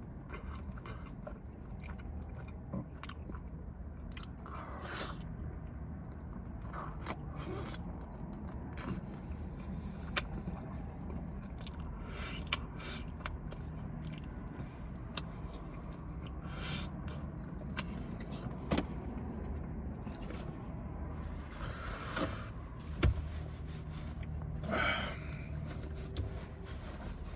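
Close-up eating of a bone-in chicken wing: scattered wet chewing, biting and lip-smacking clicks, over a steady low hum.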